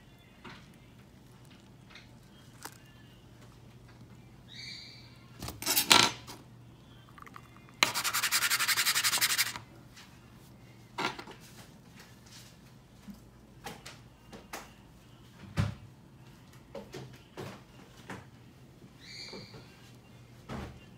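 Small handling noises: clicks of metal tweezers and a plastic tub, and dry bedding rustling. A sharp rustle comes about 6 s in, the loudest moment. About 8 s in, a dense scraping rattle lasts about a second and a half as a small plastic dish is shaken to coat a mealworm in calcium powder.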